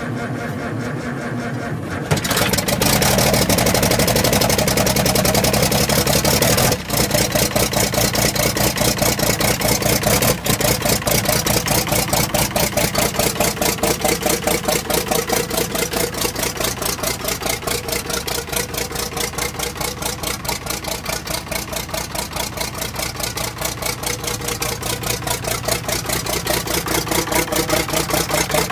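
Allis-Chalmers D17 six-cylinder diesel engine on a cold start. It turns over quietly for about two seconds, then suddenly catches and runs loud with a rapid, even diesel knock. There is a brief dip at about seven seconds, and then it settles into steady running.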